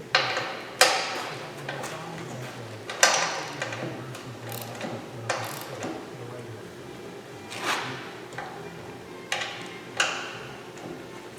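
Irregular sharp metallic clanks and knocks, about seven of them, each ringing briefly, over a low steady hum.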